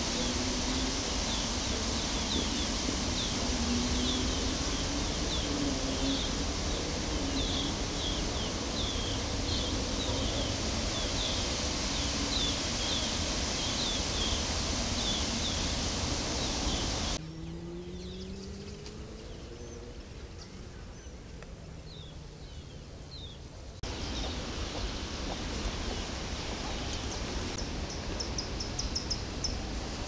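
Outdoor ambience: a steady background rush with small birds chirping repeatedly and a faint low hum underneath. Past the middle the background drops quieter for a few seconds, and near the end comes a rapid high trill.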